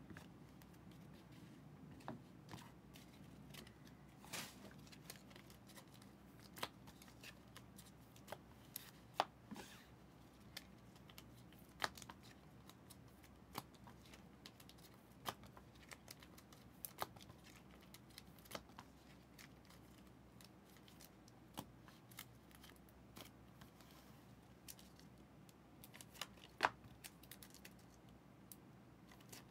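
Faint, scattered clicks and scrapes of trading cards and clear plastic card holders being handled, with one sharper click near the end.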